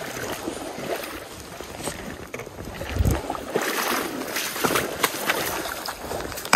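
Shallow stream water splashing and sloshing as a person wades quickly through it, with a heavy bump about three seconds in and scattered knocks and brushing on the microphone. It is loudest from about three to five seconds in.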